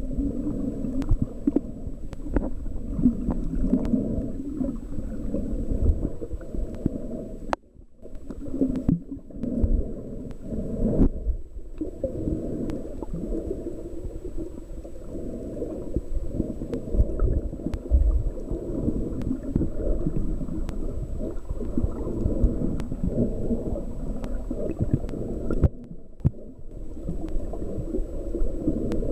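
Muffled underwater rumble and gurgling of moving water heard through a camera's waterproof housing, with a faint steady high whine above it. The rumble dips away briefly a few times.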